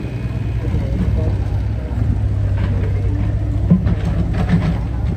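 An engine running steadily with a low, even hum, with faint voices over it in the second half.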